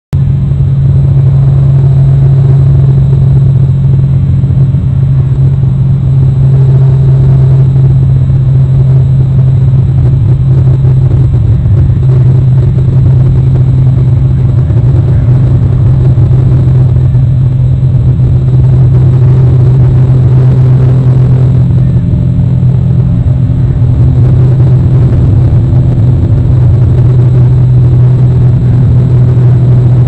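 A loud, steady low rumble with a constant deep hum that does not change.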